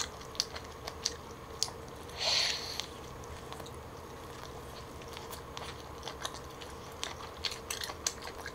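Close-up mouth sounds of eating a smoked turkey drumstick: a louder bite tearing into the meat about two seconds in, then chewing with scattered small wet clicks.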